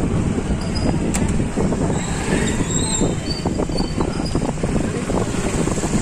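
Outdoor street noise: a steady low rumble with scattered light knocks and clatter.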